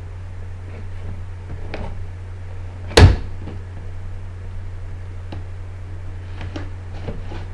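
Cardboard box being handled and opened, with scattered light taps and rustles and one loud thump about three seconds in, over a steady low hum.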